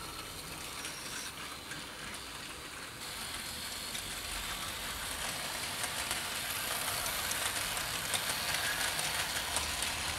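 Hornby OO gauge model train running: a GWR 2721 class pannier tank model pulling a rake of freight wagons, with the small wheels clicking lightly and rapidly along the track. It gets a little louder from about three seconds in.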